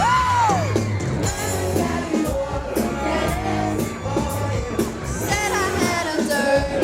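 Live pop band playing with a lead voice singing, recorded from the audience, with yells from the crowd over the music.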